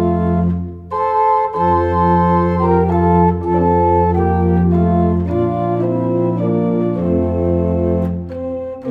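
Organ music: slow, sustained chords over held bass notes, with short breaks between phrases, one about a second in and another near the end.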